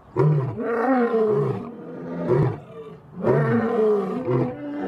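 Male lion roaring: a long roar at the start and another about three seconds in, trailing into shorter grunts near the end.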